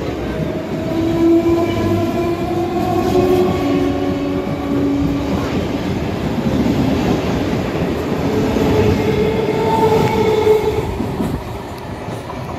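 Electric multiple unit local train running past at speed: a steady rumble and clatter of wheels on rail, with drawn-out whining tones over it.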